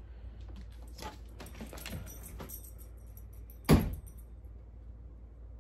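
A dog moving about on a bed: soft rustling and light jingling, with one sharp knock a little past halfway through.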